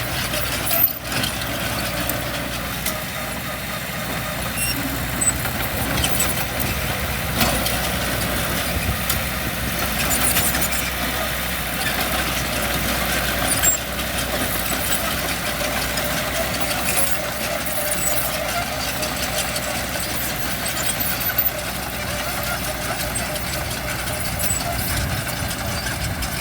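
Diesel engine of heavy earthmoving machinery running steadily, with a few short sharp knocks.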